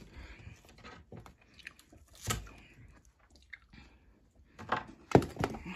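A person chewing and biting into a chocolate bar, with a few sharp crunches, the loudest about five seconds in.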